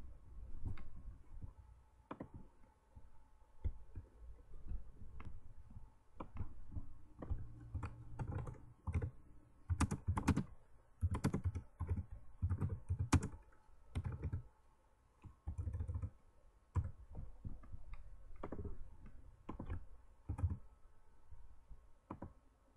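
Typing on a computer keyboard: irregular keystrokes, coming in quick clusters and busiest around the middle.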